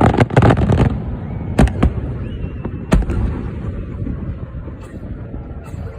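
Aerial fireworks bursting: a rapid cluster of bangs at the start, two more a second and a half in, another at about three seconds, and fainter pops near the end, over a steady low rumble.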